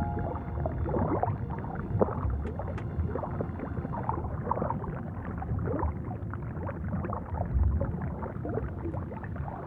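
Underwater water noise: a steady low rush with irregular bubbling and gurgling throughout, slightly louder for a moment near the end.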